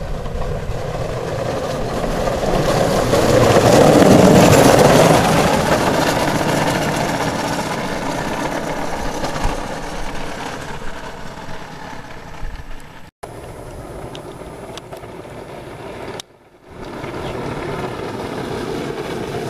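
An engineless soap box car rolls past downhill on asphalt: a rush of wheel and air noise swells to a peak about four seconds in, then slowly fades. Later the sound cuts off sharply twice.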